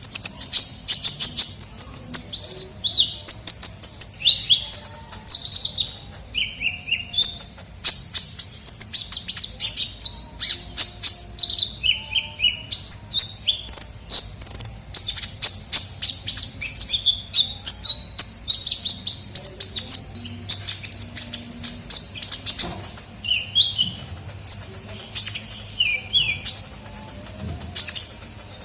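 Sunbird song ('kolibri ninja'), played as a bird-trapping lure call: rapid, high-pitched chirps and twittering trills, nearly continuous, with a couple of brief pauses.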